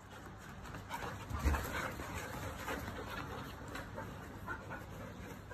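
Standard poodles moving about excitedly at a doorway, with small scuffling clicks and one low thump about a second and a half in.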